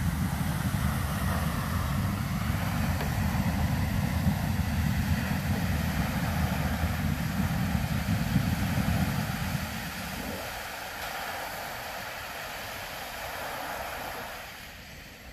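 Soda Springs Geyser, a captive carbon-dioxide-driven geyser, erupting: a steady rush of spouting water and falling spray with a low rumble. The rumble stops about ten seconds in as the eruption ends, and the remaining hiss of spray fades near the end.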